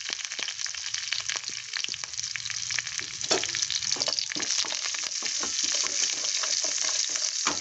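Tempering sizzling in hot oil in a pan: ginger, green chillies and curry leaves frying with mustard seeds and urad dal, a steady hiss full of quick crackling pops.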